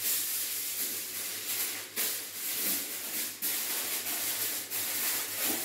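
Aluminium foil crinkling and rustling as it is pressed into the bottom of a metal smoker box, with a few sharper crackles.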